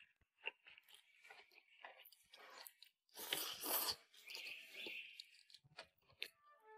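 A person eating with chopsticks: soft chewing and small mouth clicks, with louder sucking, slurping noises about three to five seconds in as food is drawn off the chopsticks.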